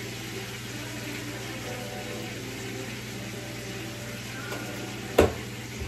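Meat sizzling steadily in oil in a frying pan, with one sharp knock about five seconds in.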